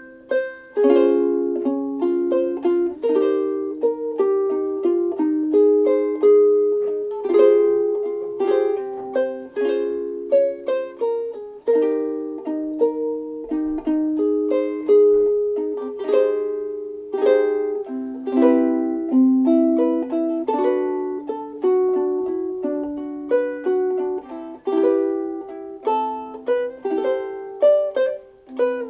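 Soprano ukulele with a solid African mahogany Ditson-style body and fluorocarbon strings, played as a continuous tune of chords and single melody notes. Each pluck rings out and fades.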